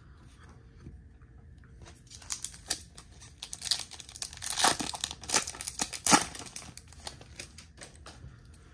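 A Topps baseball card pack's wrapper being torn open and crinkled. After a quiet start, a run of sharp crackling tears begins about two seconds in, loudest around the middle, and dies down near the end.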